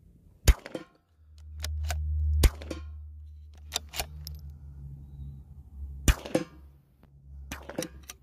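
Bolt-action .22 LR rifle firing: three sharp cracks, about two and three and a half seconds apart, with softer clicks between them. A low steady rumble comes in about a second in.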